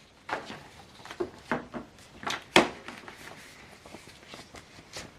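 Sheets of paper being handled and fed back into the printer's tray: a few short rustles and plastic knocks in the first three seconds, the loudest about two and a half seconds in, then softer handling.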